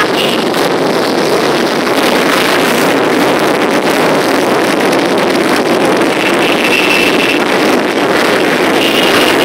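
Many motorcycles riding slowly past in a parade, their engines making a loud, steady, massed drone.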